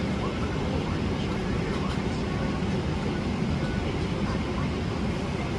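Steady cabin noise inside a Boeing 777-300ER airliner: an even, unbroken low rumble and rush of air.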